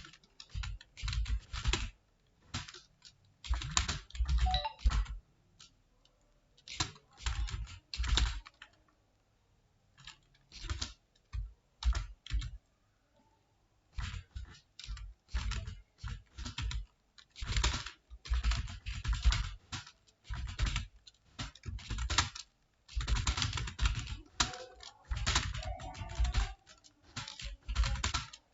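Typing on a computer keyboard: bursts of rapid keystrokes broken by short pauses of about a second.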